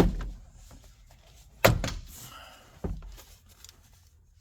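Plastic retaining clips of a 1994 Geo Metro's door trim panel popping out of the door as the panel is pried off: three sharp pops, the second, about a second and a half in, the loudest.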